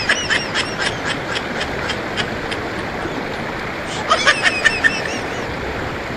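Shallow river rapids rushing steadily over rocks. Over the water come quick runs of high-pitched laughter, at the start and again about four seconds in.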